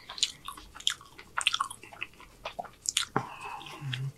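Close-miked chewing and biting of a burrito: wet mouth clicks and smacks throughout. Near the end there is a short low hum.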